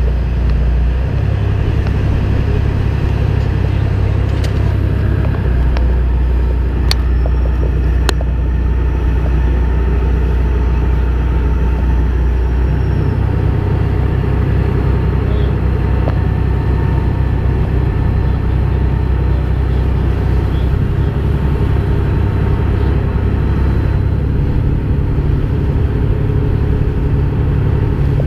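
Small boat underway: its engine runs with a steady low rumble, mixed with the rush of water along the hull. The low drone shifts in pitch a few times, and a couple of sharp knocks come about 7 and 8 seconds in.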